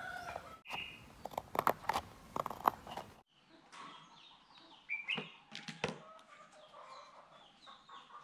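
Scissors snipping through thin cardboard, a quick run of sharp clicks that stops about three seconds in. After that, birds call in the background and the cut card gives a few light clicks as it is handled.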